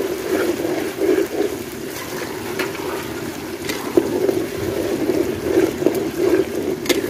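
Slices of taro root (arbi) frying in oil in an aluminium karahi, with a long metal spoon stirring and scraping through them over a steady rushing noise. There are a couple of sharp clinks of the spoon on the pan, one about four seconds in and one near the end.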